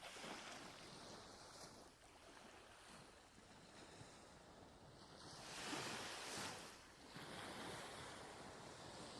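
Ocean waves washing in and drawing back, faint, in slow surges, the biggest one about six seconds in.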